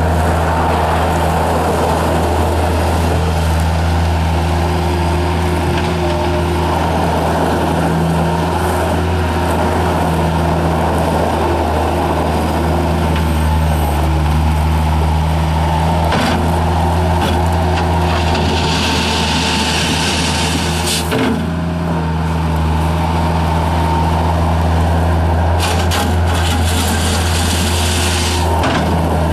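Kubota diesel engine of a 1997 Bobcat 753 skid steer loader running steadily while the machine is operated, with a few knocks and a short hiss about two-thirds of the way through.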